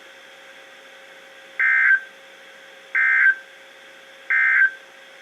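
NOAA Weather Radio end-of-message code: three short bursts of digital SAME data screech, about a second and a half apart, signalling the end of the emergency alert. A faint steady hum lies between the bursts.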